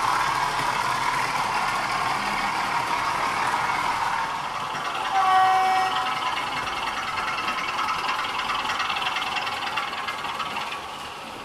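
OO-gauge model freight trains running on the layout's track: the steady whirr of the locomotive motors and the rattle of the wagon wheels on the rails. A brief tone sounds about five seconds in.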